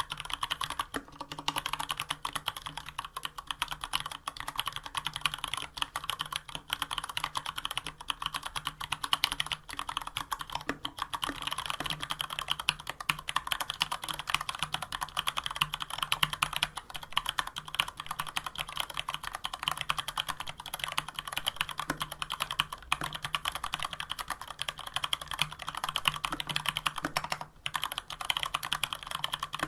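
Fast continuous typing on a Varmilo VA104M mechanical keyboard with stock, unlubed Cherry MX Brown tactile switches and dye-sub PBT keycaps, a steady stream of key clacks with a brief pause near the end.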